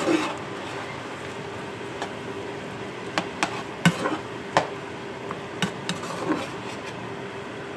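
Shrimp frying in a wok-style stir-fry pan with soy sauce just added, a steady sizzle under a faint hum, while a utensil stirring them knocks and clicks against the pan about a dozen times at uneven intervals.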